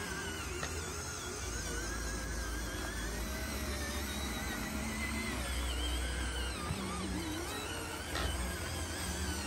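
Electric motors and gearboxes of radio-controlled dump trucks whirring as they drive, with a whine that wavers in pitch over a steady low hum.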